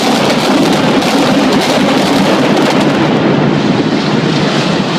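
A building collapsing in a demolition: a loud, steady rumbling roar of falling debris and rubble with crackling mixed in.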